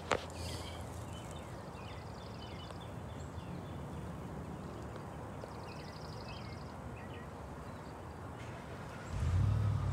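Birds chirping and trilling over a steady low rumble, with a louder low rumble for about a second near the end.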